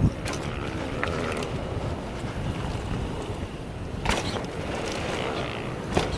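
Wind rushing over the microphone and the rolling noise of a mountain bike descending a dirt trail, with a few sharp knocks and rattles as the bike hits bumps, about a second in, about four seconds in and near the end.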